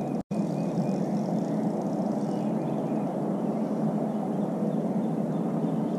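Steady low rushing ambience out on the open water of a lake, with nothing sudden in it. It drops out for an instant just after the start.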